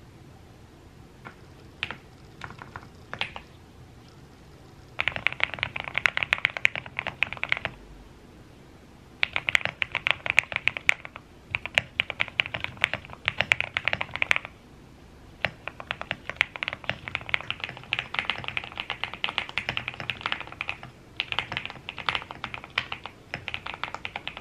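Typing on a mechanical keyboard. A few single clicks in the first seconds, then long runs of fast keystrokes with two short pauses between them.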